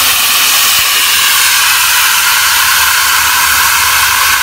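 Metal drum chestnut roaster giving off a loud, steady hiss of escaping steam, with a faint low hum underneath.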